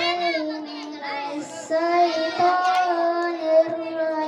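A young boy singing solo into a microphone: long held notes with wavering, ornamented turns, broken by a short breath about a second and a half in.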